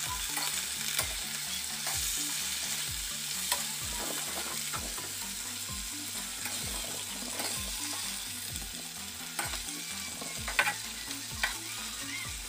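Kangkong (water spinach) stalks and fried tofu sizzling in oil in a wok as they are stir-fried, with a steady sizzle and the metal spatula scraping and clicking against the pan now and then. The loudest clicks come near the end.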